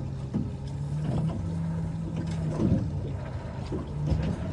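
A boat's engine running with a steady low hum, with a few faint knocks on the boat.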